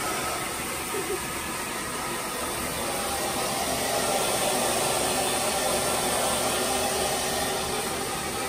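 Handheld hair dryer blowing steadily, its rushing air growing a little louder in the middle as it is worked over the hair.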